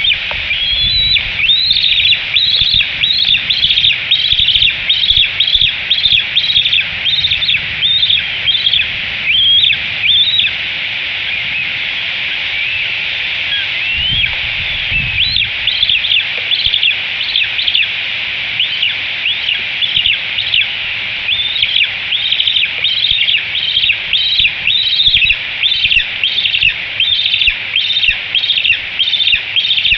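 Bald eaglet food-begging at the nest: a long run of high-pitched chirping calls, about two a second, with a pause of a few seconds before the middle. The calls sit over a steady high hiss.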